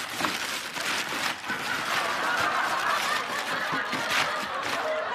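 Thin black plastic garbage bag rustling and crinkling as it is pulled open and off a cardboard box, a steady run of crackles.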